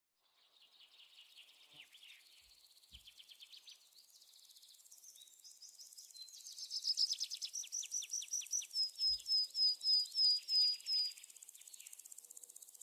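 Birds singing: quick high chirps and trills that build into a loud run of repeated short whistled notes, about four a second, which stops near the end.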